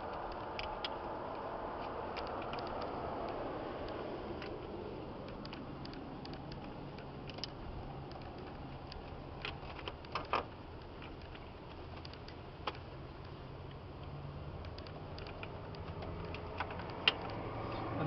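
Pliers working the hose clamps on a car's mechanical fuel pump fuel lines: scattered small metal clicks and scrapes, a few close together about ten seconds in, over a steady faint background hum.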